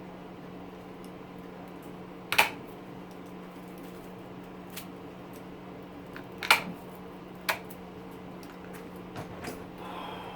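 Hand cutters snipping at the copper windings of an electric motor: a few sharp snips, the loudest about two and a half seconds in, about six and a half seconds in and a second later, over a steady low hum.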